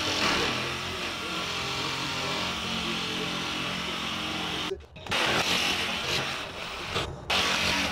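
Cordless rotary cutting tool running at high speed, cutting through the plastic centre section of a car's front grill. The sound drops out briefly about five seconds in and again about seven seconds in.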